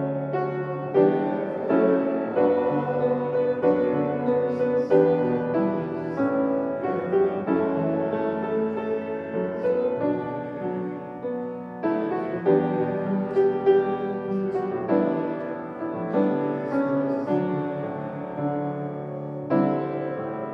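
Upright piano played solo: a slow, quiet piece of held chords, with new notes struck about once a second.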